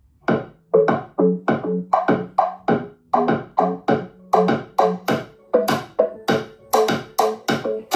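Electronic dance music with a steady, quick, punchy drum beat, played loud through a pair of speakers driven by a 12 V DC tractor amplifier board, while its bass and treble knobs are being turned up.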